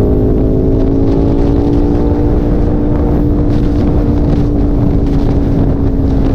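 Motorcycle engine running at steady freeway speed, its pitch rising slightly over the first couple of seconds and then holding, over loud wind and road rush.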